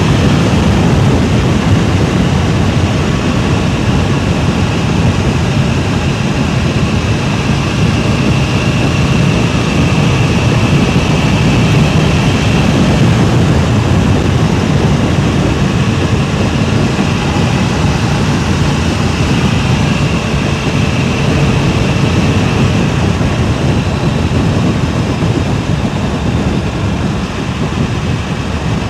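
Wind buffeting a DJI Mic Mini wireless microphone: a loud, steady rumble with a fainter hiss above it.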